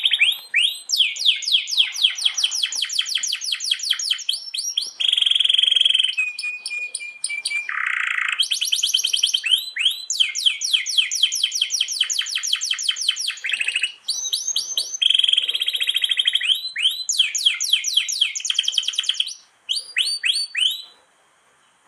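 Domestic canary singing in long rolling trills: runs of rapidly repeated notes lasting a few seconds each, broken by short buzzing tones. The song breaks off just before the end.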